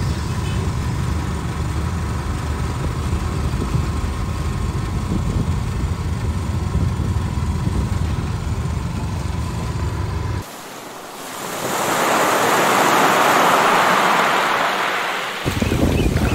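Steady engine and road rumble from inside a moving vehicle, cut off suddenly about ten seconds in. Sea waves then swell and wash ashore, with wind buffeting the microphone near the end.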